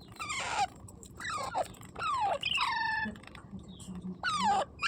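Parrot calling: about four short squawks, each sliding down in pitch, roughly a second apart, one near the middle ending in a brief held note.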